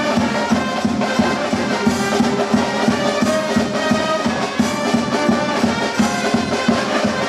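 Brass band with a sousaphone playing a tune in the open street, with sustained horn notes over a steady beat.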